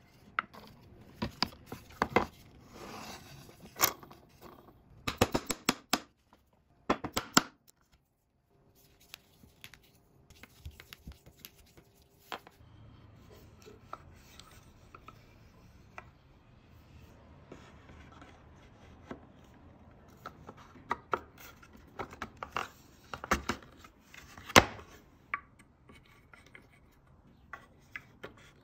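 Wooden toy parts being handled and fitted together by hand: irregular clicks, taps and wood-on-wood rubbing as gears, dowel shafts and body pieces are pushed into place, with a few sharper knocks.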